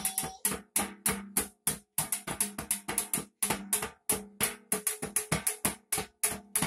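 Hands drumming quickly on a metal Tango wafer tin used as a toy drum: sharp taps, several a second, in short runs broken by brief pauses.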